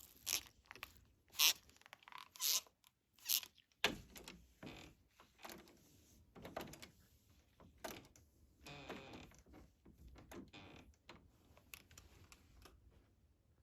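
Hands rubbing under a face-up client's neck and shoulders against a vinyl massage-table cover: a run of short, irregular rubbing squeaks, with a longer squeak about nine seconds in.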